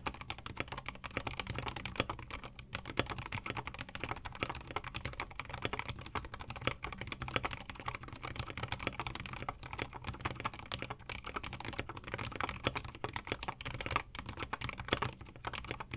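Fast, continuous typing on a mechanical keyboard with lubed Gateron Yellow linear switches, keys clacking as they bottom out, with a brief lull about two and a half seconds in.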